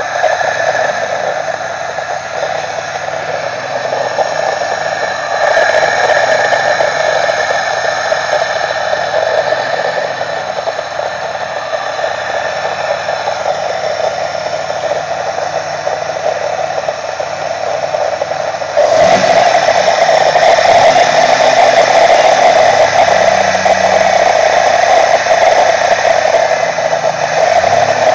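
Loud, steady rushing noise from the intake of a running 1998 Pontiac Firebird engine, an unexplained sound that the owner is trying to trace. It gets louder about five seconds in and markedly louder again about nineteen seconds in.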